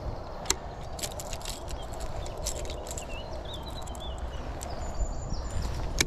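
Wind buffeting the microphone in a steady low rumble, with scattered small clicks as the rod, reel and lure are handled. A faint bird call warbles for a second or two near the middle.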